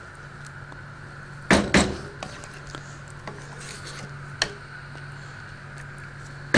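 A spatula knocking and scraping against a cooking pot while rice is stirred: two sharp knocks about one and a half seconds in, then a few lighter taps.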